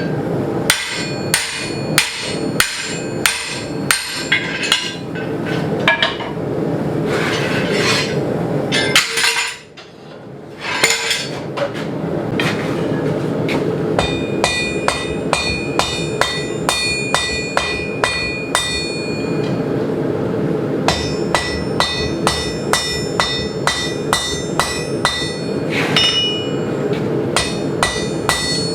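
Blacksmith's hammer striking steel on an anvil in a steady rhythm, about one and a half blows a second, the anvil ringing after many strikes, over a steady roar. The blows stop briefly about ten seconds in, then carry on.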